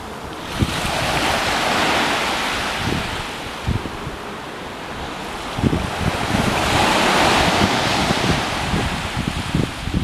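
Ocean waves breaking and washing up the shore, two swells of surf one after the other, with wind buffeting the microphone.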